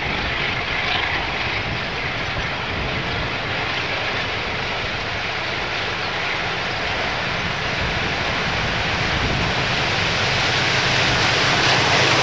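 KiwiRail DX-class diesel-electric locomotives hauling a passenger train approach and pass. Their engines make a steady low hum that grows gradually louder as the train draws near, with wind gusting on the microphone.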